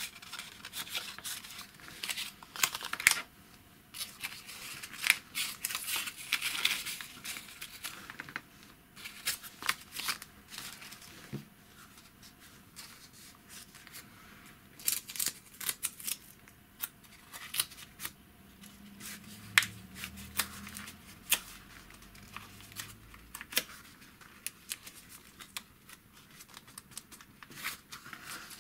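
Thin paper being folded and creased by hand: irregular rustling and crinkling with short sharp clicks as the folds are pressed flat.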